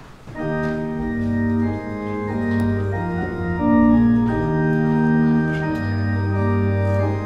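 Organ playing slow, held chords that change every second or so, starting about half a second in: the postlude after the closing benediction of a church service.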